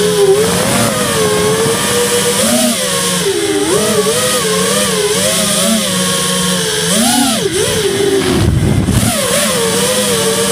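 Radio-controlled car's motor heard from an onboard camera, its pitch rising and falling again and again with the throttle, over a steady hiss. A brief low rumble comes about eight seconds in.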